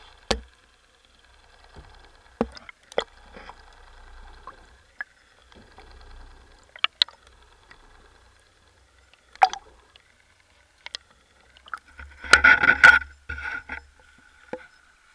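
Underwater sound through a camera housing towed behind a trolling boat: scattered sharp clicks and knocks over a faint steady whine. About twelve seconds in comes a loud burst of rushing, splashing water as the camera comes up out of the sea.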